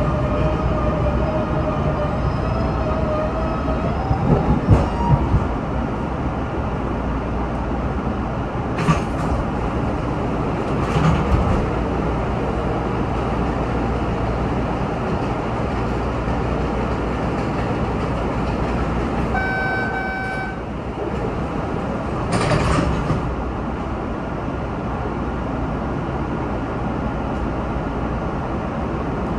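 MBTA Red Line subway car coming to a stop at a station and standing at the platform: a steady rumble, with a whine near the start that climbs in pitch as the car slows. Then come a few sharp knocks and, about 20 seconds in, a short electronic chime.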